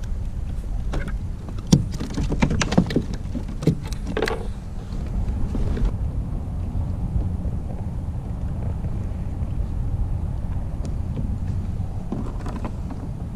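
Steady low rumble of wind and water around a fishing kayak, with a run of sharp knocks and clicks in the first four or five seconds.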